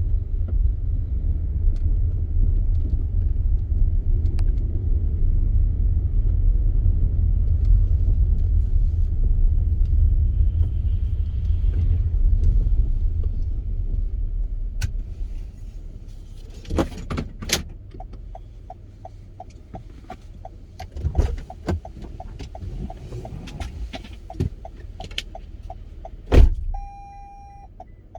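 Car driving, its steady low road rumble heard from inside and fading as the car slows, about halfway through. After that come a regular rapid ticking, scattered clicks and one loud thump near the end.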